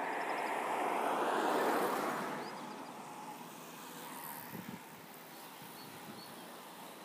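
A car, the team's support SUV, drives past on the road. Its tyre and engine noise swells to a peak about a second and a half in, then fades away by about three seconds.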